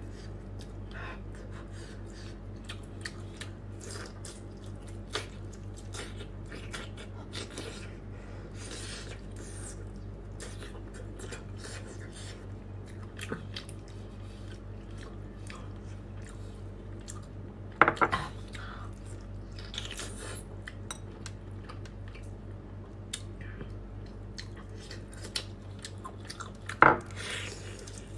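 Close-miked eating sounds of a cooked octopus being pulled apart by hand and dipped into a glass bowl of sauce: many small wet clicks and squelches, with two louder knocks about 18 and 27 seconds in, then biting and chewing on the tentacles. A steady low hum runs underneath.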